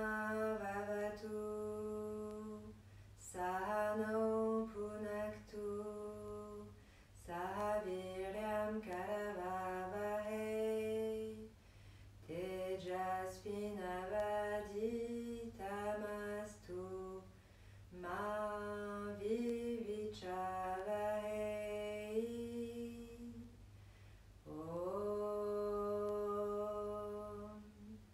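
A woman's voice chanting a mantra in about six sung phrases, each a few seconds long, with held, mostly level notes and short pauses for breath between them. It closes a yoga practice.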